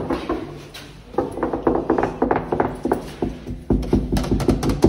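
Background music made of short, quickly repeated notes, with a heavier low beat coming in near the end.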